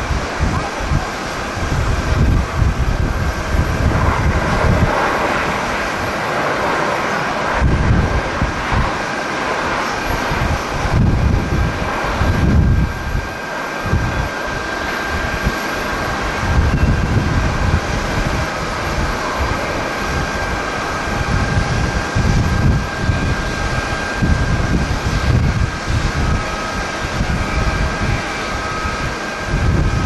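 Jet engines of Japan Airlines Airbus A350 airliners running on the runway: a continuous rumble with a thin steady high whine over it. Strong gusty wind buffets the microphone in uneven low surges.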